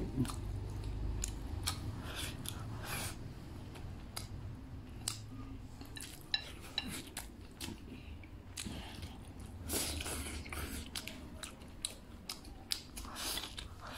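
Close-up eating sounds: someone chewing a mouthful of fried egg and rice, with many short clicks and smacks scattered throughout.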